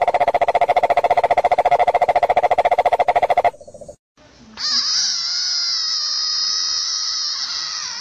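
Cane toad giving its long, rapid, even trill, which breaks off about three and a half seconds in. After a short pause comes a different frog's sustained high-pitched call, held steady to the end.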